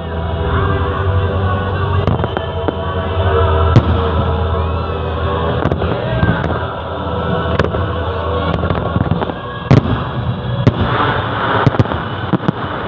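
Fireworks bursting in sharp, irregular bangs, the loudest about four seconds in and again near ten seconds, over steady music and crowd voices.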